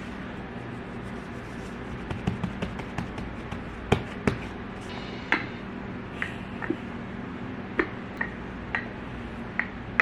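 Kitchen taps and clicks from bowls and utensils being handled while making bread, over a steady low hum. A cluster of light knocks comes about two seconds in, two sharp clicks near four seconds, then single taps every second or so.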